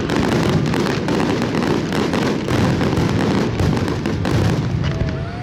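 A dense, unbroken barrage of aerial fireworks: overlapping booms and crackling bursts following one another with no gaps.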